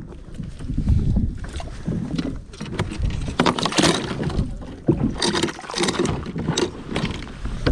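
Water splashing and knocking around a fishing kayak, several short bursts about halfway through, over the low rumble of wind on the microphone.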